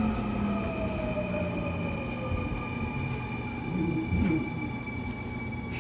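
Seoul Subway Line 2 4th-batch electric train running and slowing, with rail rumble under a whine from the traction motors whose pitch falls gradually as it brakes.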